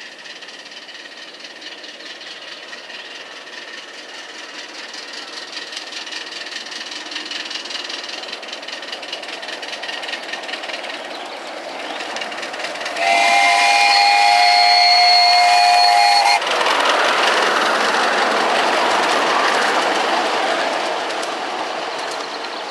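Miniature ridable steam locomotive running along the track, its noise growing louder as it approaches. Partway through it sounds a steady steam whistle of several notes for about three seconds, which cuts off sharply. Then it passes loudly and begins to fade.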